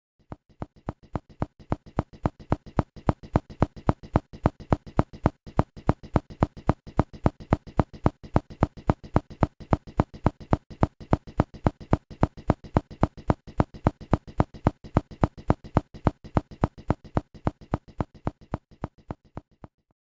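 A percussion instrument struck in a fast, even rhythm, about five strokes a second, each stroke with a short pitched ring. The strokes swell up over the first two seconds and fade away near the end.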